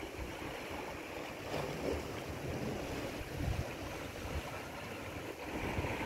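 Gentle sea waves washing and lapping over shallow rocks, with wind rumbling on the microphone.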